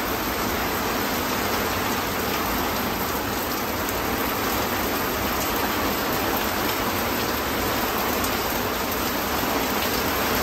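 Heavy rain pouring down on a sailboat's cockpit canvas and deck, a loud, steady hiss.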